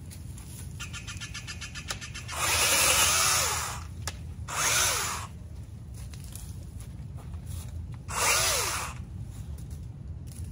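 Vanpore cordless mini chainsaw run in three short bursts as it cuts rose bush branches. Its motor spins up and winds down with each trigger pull, the longest burst lasting about a second and a half.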